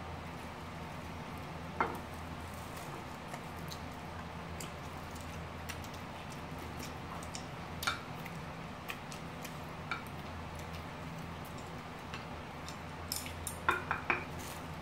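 Quiet eating sounds: chopsticks clicking now and then against ceramic plates, with soft chewing, over a steady low hum. A quick run of clicks comes near the end.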